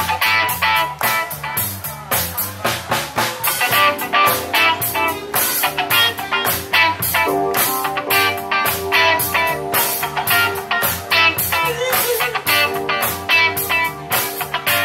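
Live band music: a drum kit keeping a steady beat under a bass line, with a keytar playing lead.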